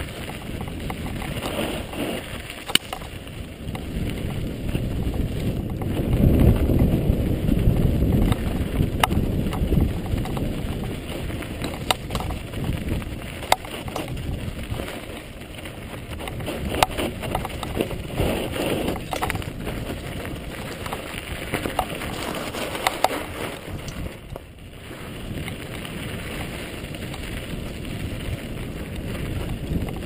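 Mountain bike rolling fast downhill over a rocky dirt trail: tyres crunching over gravel, with sharp knocks and rattles from the bike over bumps, and wind rushing over the helmet-mounted camera's microphone. The noise is loudest about six to nine seconds in.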